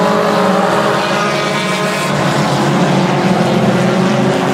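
A pack of dirt-track stock cars racing, several engines running at once at different pitches in a steady, overlapping drone.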